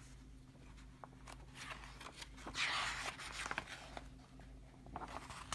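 A paper page of a picture book being turned: a brief soft rustle about two and a half seconds in, with faint handling ticks around it.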